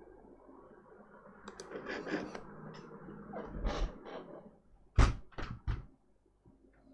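Handling noises from a laptop being worked on: rustling and scattered clicks, then a loud thunk about five seconds in followed by two lighter knocks.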